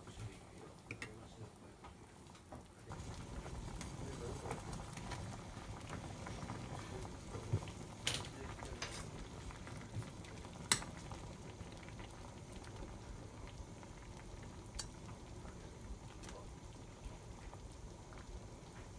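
Oden broth bubbling at a boil in a stainless steel pot, growing louder about three seconds in. A few sharp clicks and knocks come as fish cakes are pushed into the pot with wooden chopsticks.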